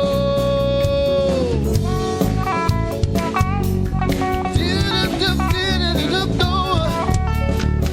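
Live gospel band music: a long held sung note trails off about a second and a half in, then drums, bass and guitar carry an instrumental passage with a lead line that bends up and down in pitch.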